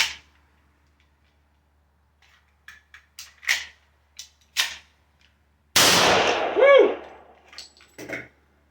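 A few short clicks as the pistol is handled and loaded, then a single shot from a Hi-Point JHP .45 ACP pistol nearly six seconds in, ringing on for about a second. A shout of "Woo!" follows straight after the shot.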